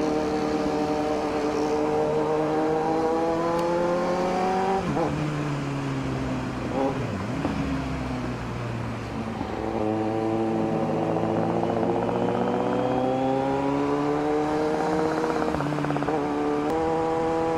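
Kawasaki Z900's inline-four engine running under way, heard from the rider's seat. Its note holds steady, drops abruptly about five seconds in and stays low for a few seconds, then climbs back and holds as the throttle is rolled on again.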